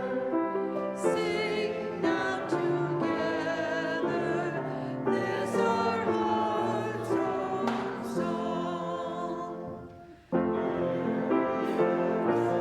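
Congregation singing a hymn in unison, held notes moving phrase by phrase, with a brief break about ten seconds in before the singing picks up again.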